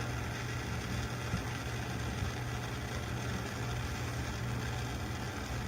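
A steady low mechanical hum under a faint, even hiss, with no changes.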